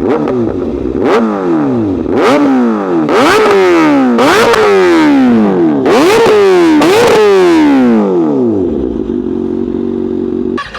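Kawasaki ZX6R 636 inline-four revved at a standstill through an M4 GP19-style slip-on with the baffle removed, running essentially as a straight pipe. It makes a string of quick throttle blips, about one a second, each rev falling straight back, then settles to a steady idle near the end.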